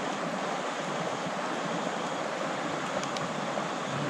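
Shallow river water rushing steadily over rocks and riffles.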